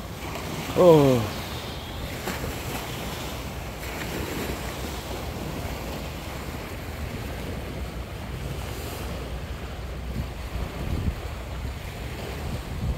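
Wind buffeting the microphone over a steady wash of sea on a sandy beach, with a low rumble throughout.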